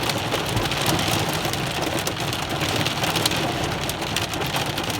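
Heavy rain pouring down with hail, a dense steady hiss thick with small pattering ticks of drops and hailstones striking.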